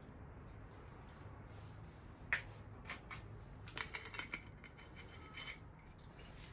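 Faint handling noises of a Metaxa bottle and a small measuring cup: a sharp click a little over two seconds in, then scattered light clicks and rubbing.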